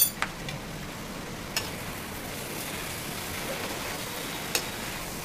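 Low, steady sizzle of rice and egg masala frying in a kadai, with a few sharp clicks of a metal spoon against the pan as they are stirred together.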